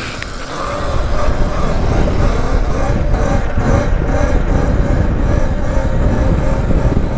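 Wind buffeting the microphone on a moving electric dirt bike, a heavy low rumble, with the bike's electric motor giving a faint steady whine underneath.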